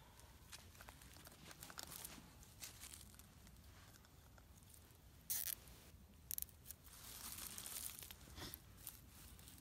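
Faint rustling and crinkling handling noises, with two short, sharper scrapes about five and six seconds in.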